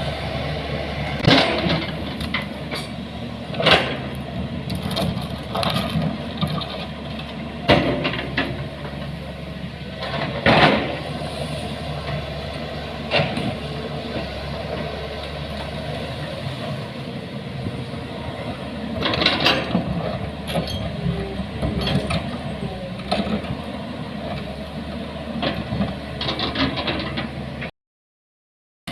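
Heavy engine running steadily, with sharp knocks and clanks at irregular intervals. The sound cuts out for about a second near the end.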